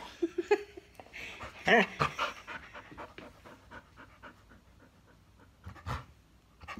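Yellow Labrador retriever panting quickly with its mouth open, with a short whining vocal sound about two seconds in and a few brief squeaky tones just before it.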